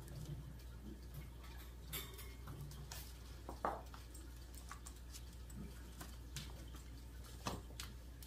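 Puppies and a small dog moving about a pen: scattered light clicks and clinks, one louder about three and a half seconds in, over a steady low hum.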